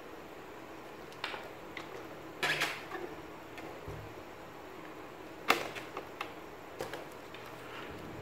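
Several clicks and knocks as a test lead's banana plug is handled and pushed into the black output terminal of a Riden RD6018 bench power supply. The sharpest click comes about five and a half seconds in.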